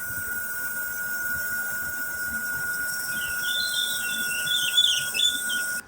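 Refrigerant gas hissing out of a car's AC system through an opened valve, with a steady whistle-like tone. From about three seconds in there are irregular squeals, and it all cuts off suddenly.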